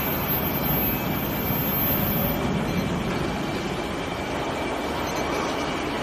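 Steady machinery noise with a faint high whine throughout, the kind made by industrial equipment running, here plausibly the induction weld preheat machine in operation.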